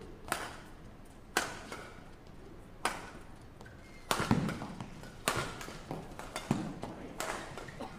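Badminton rally: rackets striking a shuttlecock back and forth, about seven sharp hits roughly a second apart. One heavier hit with a low thud comes about four seconds in.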